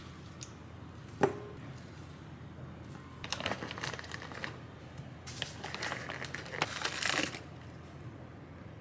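One sharp knock about a second in, then a plastic zipper bag crinkling in two stretches as it is handled and opened.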